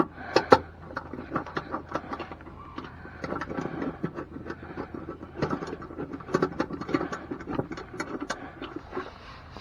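Step-rail mounting hardware being handled: a steady run of irregular clicks, clinks and light scrapes, with two sharper knocks right at the start.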